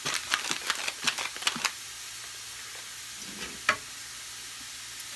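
Beef roast sizzling steadily as it sears in an Instant Pot, with a quick run of clicks and rattles in the first couple of seconds and one sharp click a little past the middle.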